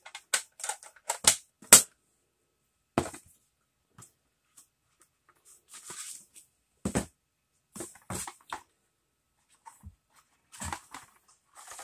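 Boxed items and cardboard packaging being handled: a quick run of sharp clicks and knocks in the first two seconds as the wallet's hard box is closed and moved, then scattered knocks and short cardboard rustles as a small carton is pulled out and its flap opened.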